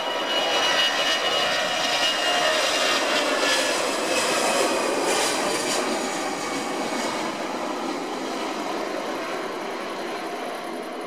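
Airbus A320 jet engines running at takeoff power during the takeoff roll: a steady jet noise with a thin whine, slowly growing quieter as the airliner moves away down the runway.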